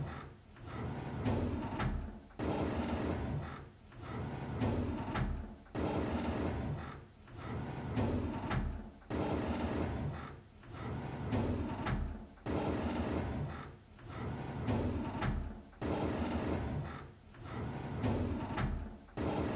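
A drawer sliding open, again and again in a loop: each pass is a rumbling slide that swells and fades, repeating about every three and a half seconds.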